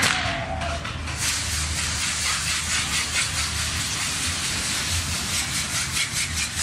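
Fireworks on a burning torito, a frame of pyrotechnics carried through the street, hissing steadily with a faint crackle as its fountains throw sparks.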